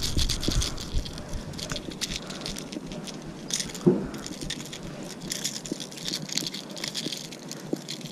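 Metal treble hooks and split rings of a Megabass Vision 110 Jr jerkbait clicking and jangling as they are worked free from a bass's mouth: a run of small sharp ticks, with one brief louder sound about four seconds in.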